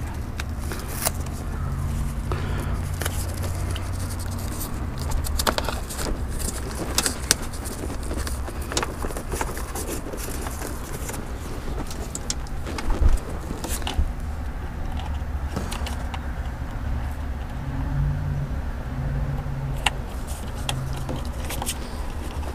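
Hands handling the wiring and plastic fan housings of a Ford Escape Hybrid's traction-battery compartment: scattered clicks, knocks and rattles over a steady low rumble.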